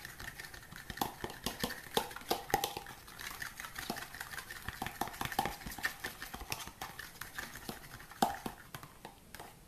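A utensil beating a runny mix of egg, mashed banana and honey in a bowl: quick, irregular clicks against the side of the bowl.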